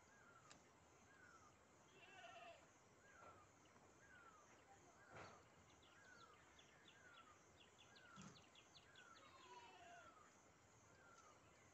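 Faint birdsong: a bird repeating a short falling whistle about once a second, with a few other brief chirps and a quick run of high ticks midway.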